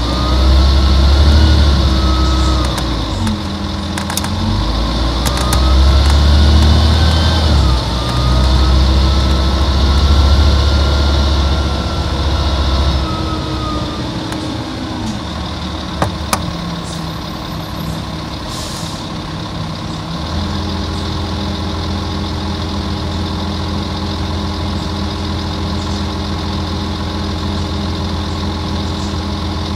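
A Volvo Olympian double-decker bus's Volvo D10A-245 diesel engine pulling hard, its pitch rising and dropping several times through shifts of the ZF automatic gearbox, then easing off. About 19 seconds in there is a brief hiss of air. From about 20 seconds the engine settles into a steady idle.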